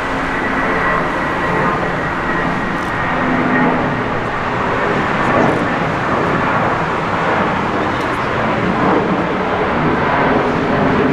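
Jet airliner engines running, a loud steady rush that swells slightly, with a faint high whine in the first couple of seconds.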